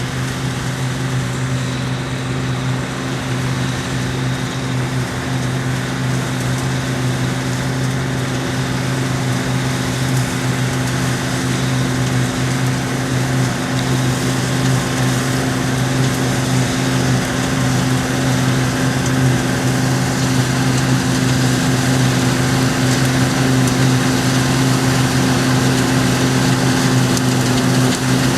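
Combine harvester cutting barley: a steady engine hum under a dense rushing noise from the crop and machinery, slowly growing louder.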